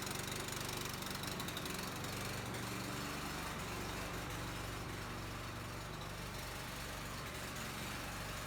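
Petrol engine of a sawmill running steadily.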